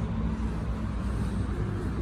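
Steady low outdoor rumble with no distinct single event, of the kind made by distant road traffic.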